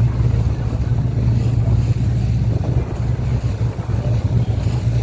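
A boat engine running steadily underway: a deep, constant drone, with a rushing noise over it.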